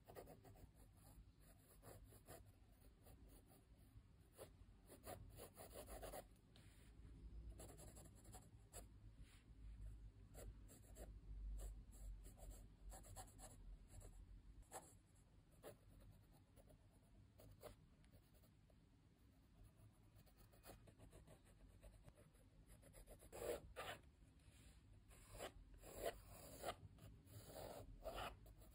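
Faint scratching of a coloured pencil lead on sketchbook paper: short, irregular strokes as a face is sketched, with a run of louder strokes near the end.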